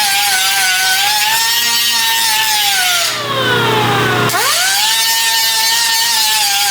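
A power tool's motor whines at a steady high speed. About three seconds in it winds down in pitch, nearly stops just after four seconds, then spins straight back up to full speed.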